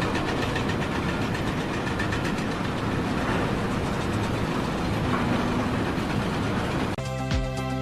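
A heavy machine or engine running with a steady, dense rattle. About seven seconds in it cuts off abruptly, and music with a steady beat starts.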